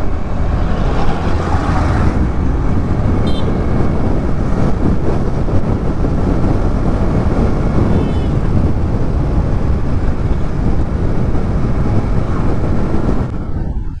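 Steady wind and road rush on a helmet-mounted action camera while riding a motorcycle, with the engine running underneath. The noise is heaviest in the low end.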